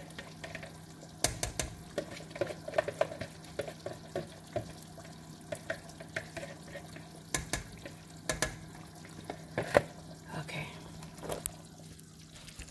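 Kitchen utensil clinking and knocking against a container during hand mixing and handling at the counter, with a few louder knocks, over a steady low hum.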